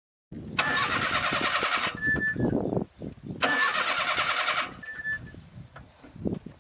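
Car starter cranking the engine in two bursts of about a second and a half each, the engine not catching, as the car fails to start.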